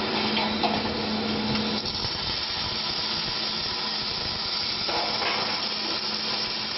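Automatic longitudinal seam welding machine running, giving a steady hiss. A low hum drops out about two seconds in.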